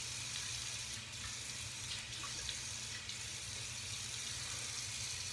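Water running steadily from a bathroom tap into a sink as a face is rinsed off after a shave.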